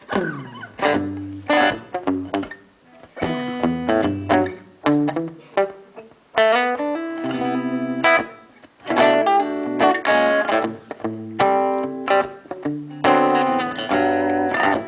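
Solo acoustic guitar intro: picked chords and single notes that strike sharply and ring out, with a low bass note under most chords and brief pauses between phrases.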